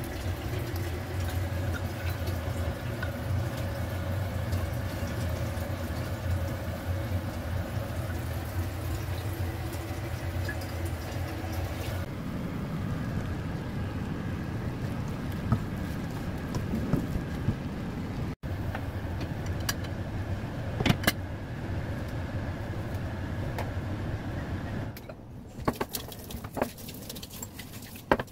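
Food cooking in a wok on an electric stove over a steady kitchen hum, changing after an edit to a rougher simmering sound. A few sharp clicks and knocks come in the second half.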